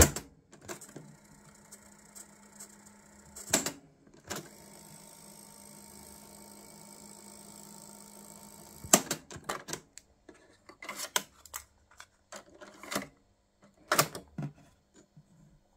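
Sanyo M9998LU cassette deck's piano-key transport: the keys clunk as playback is stopped, then the tape winds back with a faint steady whir for about four seconds before stopping with a clunk, followed by a run of key clicks near the end.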